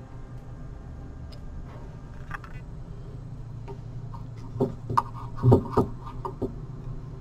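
A handful of light knocks and clicks, bunched together past the middle, from small plywood model-ship parts and tools being handled on a workbench, over a steady low hum.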